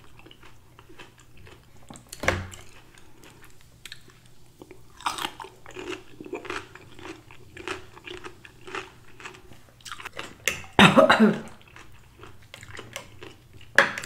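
Close-miked chewing and biting of food, with some crunchy bites. There is a sharp knock about two seconds in, and a short, louder throat or mouth sound just before eleven seconds.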